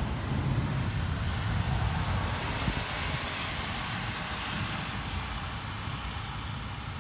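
Steady rushing noise of a night thunderstorm: rain hiss over a low, unsteady rumble of wind on the microphone, easing slowly over the last few seconds.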